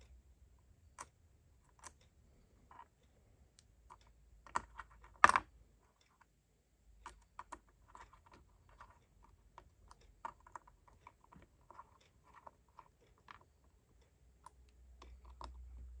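Light, scattered clicks and taps of small TopB mechanical fidget parts being handled and fitted together, with a brief cluster of louder clicks about five seconds in.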